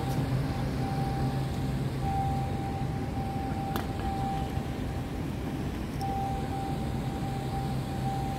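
Steady outdoor city background noise: a low, even rumble like distant traffic, with a faint thin tone that comes and goes.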